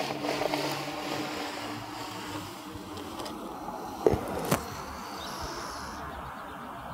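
Perforated PVC air pipe being drawn up out of a compost pile, a rough scraping rustle at first, over steady outdoor background noise with a low hum. Two sharp knocks come about four seconds in.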